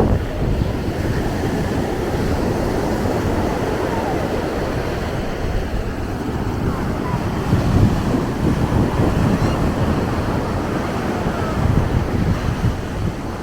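Ocean surf washing onto the beach, with wind buffeting the microphone in low gusts.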